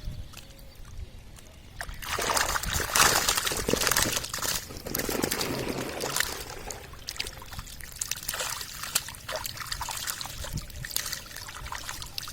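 Water splashing and trickling, starting about two seconds in and loudest for the next few seconds, with many small irregular splashes and clicks.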